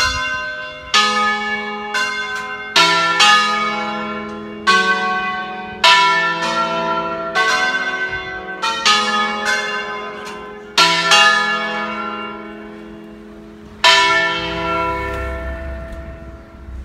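Five-bell church peal, bronze bells cast by De Poli in 1949 and tuned to an E major scale, played one stroke at a time as a tune by bell ringers in concert style. About fifteen strokes fall at uneven intervals, each bell ringing on under the next. A last stroke comes about 14 seconds in and is left to die away.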